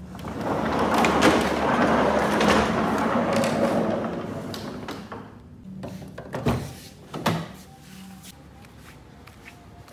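Two door thuds about a second apart, after a few seconds of even rushing noise that fades out.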